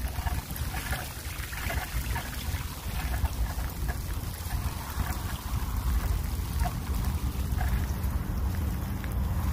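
Wind rumbling on the microphone over the steady hiss of a hybrid bike's tyres rolling on a wet path, with a few faint ticks.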